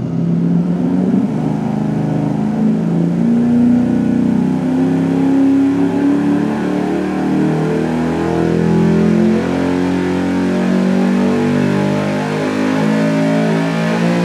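A 6.2-litre LS V8 with a cam, Holley Hi-Ram intake and headers, running under full load on an engine dyno, its revs climbing steadily from about 2,500 to about 6,600 rpm in a power pull.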